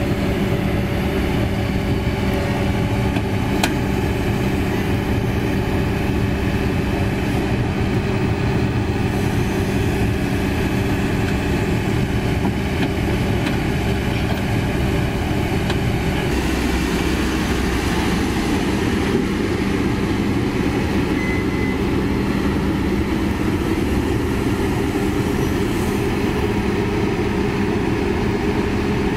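Heavy diesel engines running steadily: a Kobelco SK200 excavator driving up onto a self-loader truck's tilted deck, with the truck's engine also running. The sound shifts a little over halfway through.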